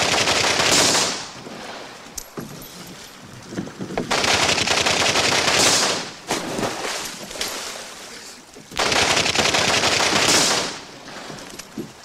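Three long bursts of rapid automatic gunfire, machine-gun fire each lasting about two seconds, the first already under way at the start, the others about four and nine seconds in, with water splashing in the gaps between them.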